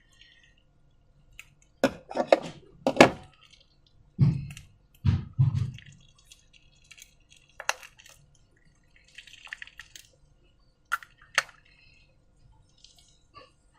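Slime being worked by hand in a container: a series of wet drips and squelches, with several sharp clicks and a few duller thumps.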